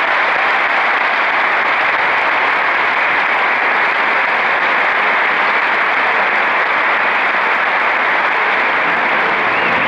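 Large crowd applauding steadily in a long ovation.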